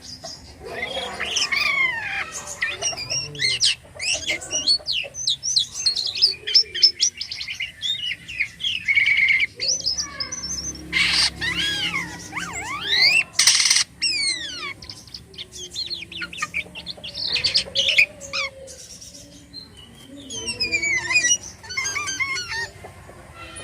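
Jalak kapas starling in full song (gacor), packed with mimicked phrases (isian): a fast, varied run of whistles, rising and falling notes and chirps, broken by two loud harsh rasping squawks around the middle.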